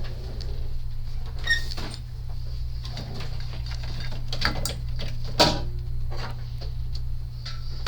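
Scattered small clicks and taps of hand tools working on a circuit board over a steady low hum.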